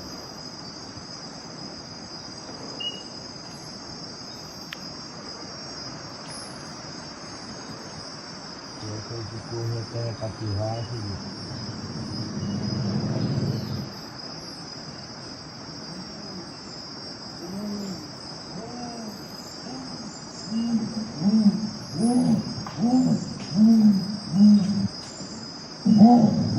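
Crickets and other insects chirring steadily, then a jaguar's roar: a run of repeated hoarse grunts, about one and a half a second, starting about two-thirds of the way in and growing louder toward the end. A lower rumbling sound comes and goes around the middle.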